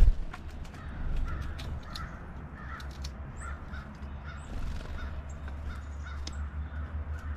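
Harsh, caw-like corvid calls repeating two or three times a second over a steady low rumble. A single thump comes right at the start.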